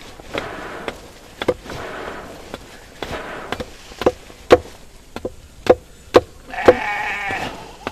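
Hammer blows striking metal in a blacksmith's forge, each with a short ring, about two a second at an uneven pace. Near the end a goat gives one drawn-out bleat.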